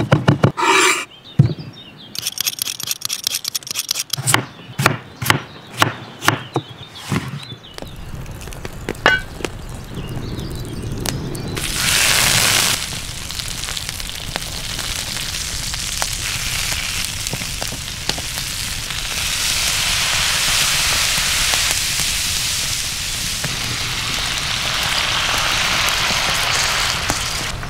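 A knife chopping fresh herbs on a wooden cutting board, a rapid run of sharp knocks. It gives way about eight seconds in to meat and sausage frying in hot oil in a wide pan: a steady sizzle with a brief louder burst about twelve seconds in, growing stronger in the second half.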